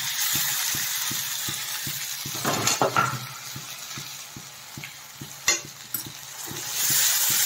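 Sliced onions and freshly added ginger-garlic paste sizzling in hot oil in a kadhai, stirred with a steel spatula that scrapes the pan a few times. The sizzle grows louder near the end.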